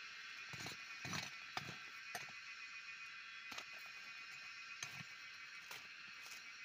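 A short hand tool chopping and scraping into soil and weeds in irregular knocks, about ten of them. Under them runs a steady high buzz of insects.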